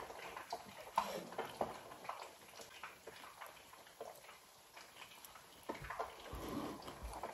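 A person eating by hand: scattered small clicks and mouth smacks of fingers picking food and chewing, with a sharper click about a second in and a couple of low thumps near the end.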